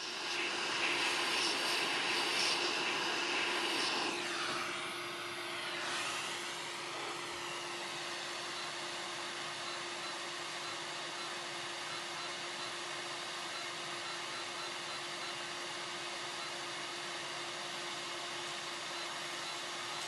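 Hot air rework station blowing a strong jet of air at 80% airflow: a steady hiss with a faint hum. It is louder for the first few seconds while the nozzle is worked over the shield, shifts in tone around four to seven seconds in, then settles to an even rush.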